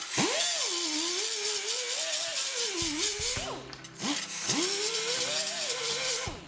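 Air die grinder with a 36-grit sanding disc grinding bare steel on a motorcycle fuel tank. The motor's whine sags and recovers as the disc is pressed into the metal, over a harsh grinding hiss. It runs in two stretches with a short break about halfway.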